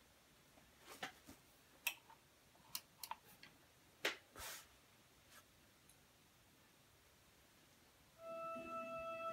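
A few light clicks in the first half, then, about eight seconds in, music starts playing through loudspeakers driven by a Pioneer SA-740 integrated amplifier: a melody of clear held notes.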